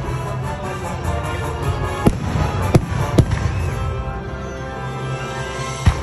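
Aerial firework shells bursting overhead: four sharp bangs spread across the few seconds, with music playing steadily underneath.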